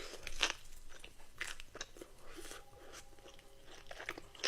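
Crisp crunching and chewing of a bite of fried chicken tender topped with a pickle and a french fry, a series of short crunches.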